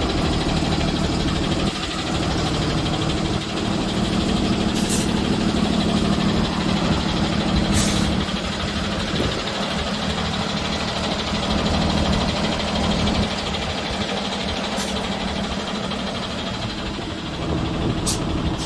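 Truck engine running steadily, with a few brief sharp clicks.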